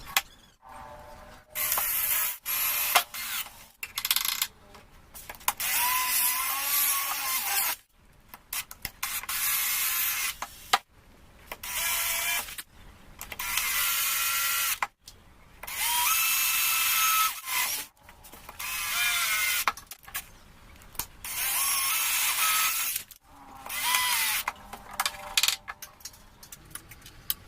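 A power tool runs in about ten bursts of one to two seconds each, its pitch wavering as it runs. Between bursts there are short pauses with clicks.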